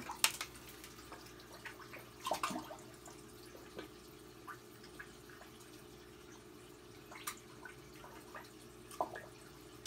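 Aquarium water: scattered drips and small splashes at the tank surface over a steady low equipment hum.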